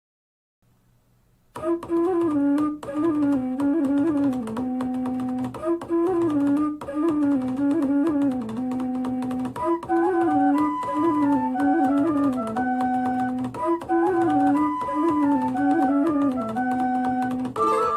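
Instrumental test music played through a Sony SRS-HG10 Bluetooth speaker with EXTRA BASS mode off. A woodwind-like melody in short repeating phrases runs over a steady low accompaniment. It starts about a second and a half in, after silence.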